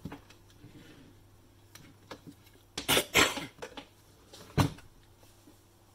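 Hard plastic housing parts of a Nescafe Dolce Gusto coffee machine knocking and clattering against the wooden workbench as they are handled and moved. There are small ticks first, a cluster of loud knocks about three seconds in, and one more sharp knock a second and a half later.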